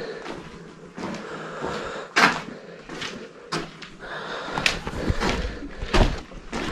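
Footsteps of a hiker on a rocky dirt trail: irregular scuffs and knocks, one or two a second.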